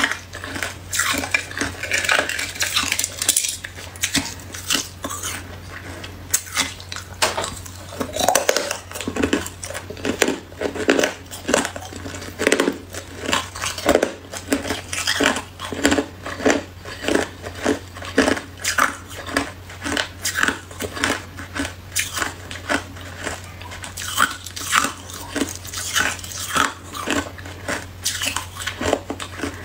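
Hard clear ice being chewed close to the microphone: a steady run of sharp crunches and cracks, about two a second, over a faint steady low hum.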